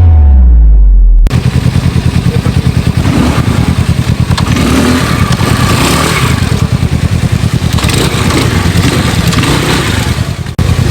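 A music track winds down in pitch and cuts off about a second in. Then a motor engine runs with a fast, steady pulse.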